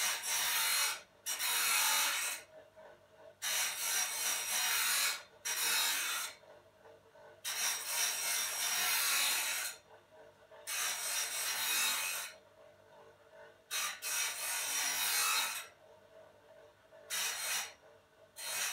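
Rough scraping strokes of an abrasive hand tool worked over a tool's surface, like filing or sanding: about nine separate strokes, each one to two seconds long, with short pauses between them.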